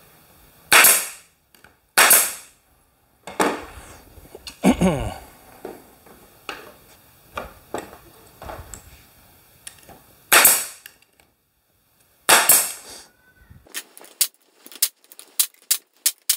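Pneumatic brad nailer firing four times, each a sharp crack with a brief hiss of air, driving 3/4-inch brad nails through thin pine planks into plywood. Quieter knocks from handling the boards come between the shots, and a quick run of lighter clicks comes near the end.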